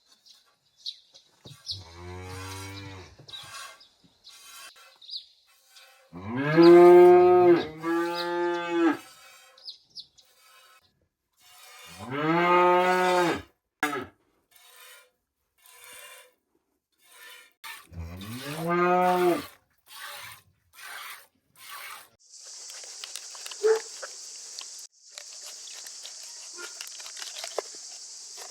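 Cow mooing five times, each call lasting a second or so, two of them back to back. A steady high-pitched hiss sets in near the end.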